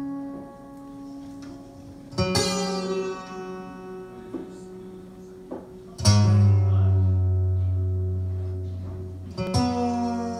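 Acoustic guitar played slowly: chords struck three times, about two seconds in, about six seconds in and near the end, each left to ring out and fade, the middle one with a deep bass note under it.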